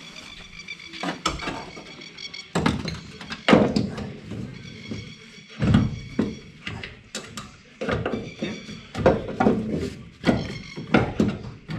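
Repeated metal knocks and clunks as a Koni coilover strut is worked up into the front strut tower and its top bolts fitted, with background music underneath.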